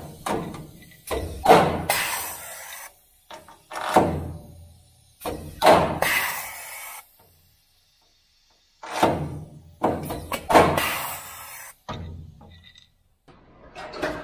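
Air-powered hydraulic Huck bolt installation tool cycling about five times as it sets Huck bolts, each stroke beginning with a sharp crack and trailing off in a hiss of air lasting a second or two.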